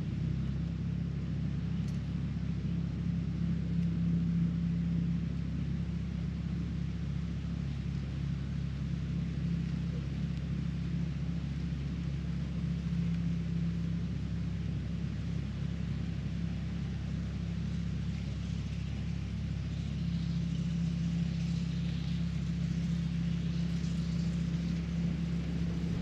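A steady low mechanical drone, a constant hum that holds level throughout, like a motor running.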